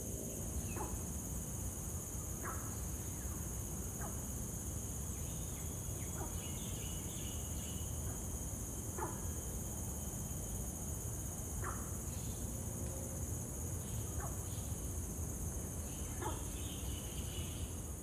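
Steady high-pitched insect chorus, with short falling calls repeating every two to three seconds and a few chirps around the middle and near the end.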